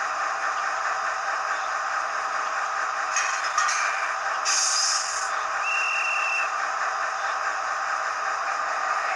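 LokSound 5 sound decoder in an HO-scale model of the SNCF CC 72074 diesel locomotive, playing a steady diesel engine running sound through its small speaker. About three seconds in there is a short clatter, then a sharp burst of hissing air about a second later, then a brief high steady tone.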